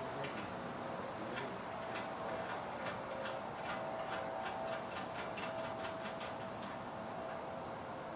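Ratchet wrench clicking in a quick run, about five clicks a second for around five seconds, as a hold-down bolt on the CNC mill's shipping pallet is worked loose.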